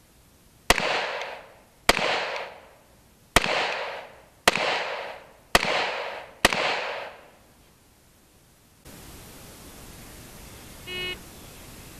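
Smith & Wesson SW99 pistol in .40 S&W firing six shots at a steady pace, a little over a second apart, each with an echoing tail.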